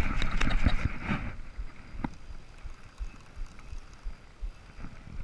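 Spinning reel's drag buzzing as a freshly hooked sailfish strips line, for about the first second. It then gives way to low wind and water noise around the kayak, with a few light knocks.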